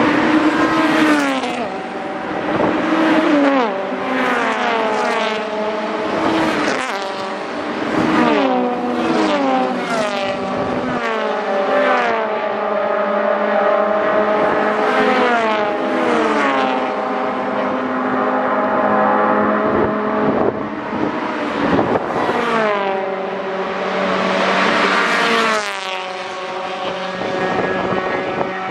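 A string of Honda race cars passing at speed one after another, the engine note of each falling in pitch as it goes by, with several cars often heard at once.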